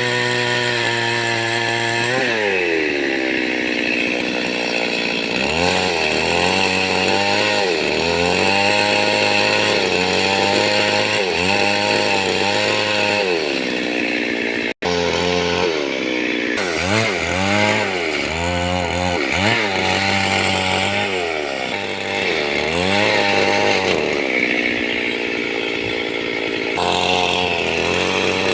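Stihl MS 382 two-stroke chainsaw running at high revs, its pitch dipping and recovering again and again as it bogs under load while cutting wood. The sound drops out for an instant about halfway through.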